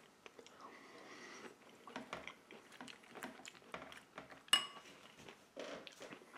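Quiet eating sounds: soft chewing, and a wooden spoon scraping and tapping in a bowl of salad. One sharper clink comes about four and a half seconds in.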